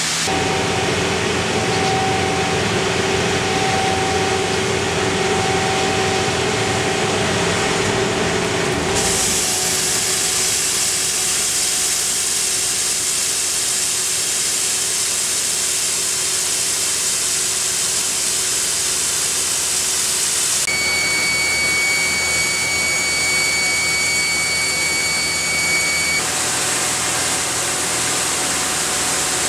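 Hammelmann DockBoy ultra-high-pressure water-blasting rig at work on a ship's hull: a loud, steady hiss of water jets stripping paint, with machine hum underneath. The sound changes abruptly about a third of the way through, and a steady high whistle joins for several seconds past the two-thirds mark.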